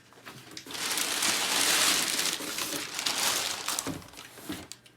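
Packaging crinkling and rustling as it is handled and pulled open, most of it in one long stretch that tails off near the end into a few small crackles.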